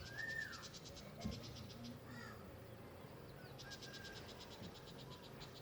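Faint birds calling: a short whistled call that rises and falls, then two runs of a rapid, high trill, with a single soft thump about a second in.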